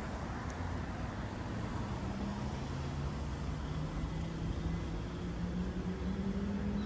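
A vehicle's motor running over a low rumble, its hum rising slowly in pitch from about two seconds in.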